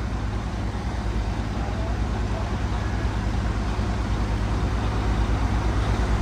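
Heavy diesel engine running steadily with a low, fast pulse, growing slightly louder toward the end.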